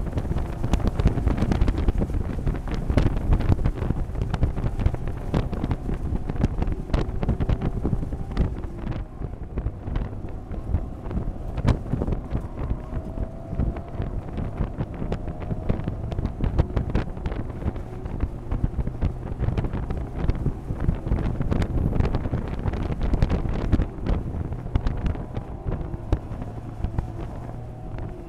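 Mazda MX-5 race car's engine heard from inside the cockpit under heavy wind buffeting on the onboard camera microphone. The engine note rises and falls with throttle through the middle stretch.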